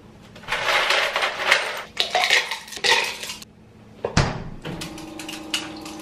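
Ice cubes clattering inside a plastic ice bin for about three seconds, then a thump and a steady hum from the refrigerator's door dispenser as a glass is held under it.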